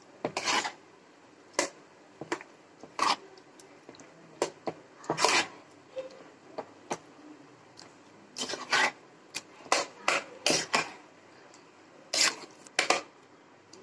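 Metal spoon scraping against a metal bowl while stirring fruit into cream, in short, irregular strokes.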